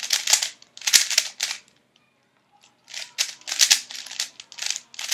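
Thunderclap 3x3 speedcube being turned fast during a solve: quick runs of plastic clicking turns, with a pause of about a second partway through.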